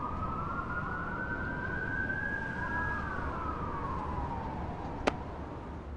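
A siren wailing in one slow rise and fall of pitch over a low rumble, with a single sharp click about five seconds in.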